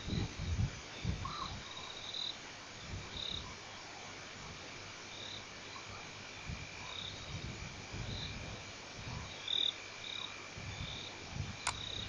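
Night ambience of frogs calling in short, repeated notes over a steady high insect drone, with scattered low, dull thumps.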